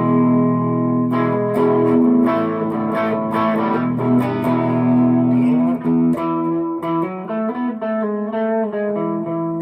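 Harley Benton SC-DLX electric guitar played through a Tone City King of Blues overdrive pedal on its B engine, with a little delay. A chord rings, then more chords are struck, and from about six seconds in the playing turns to quicker single notes.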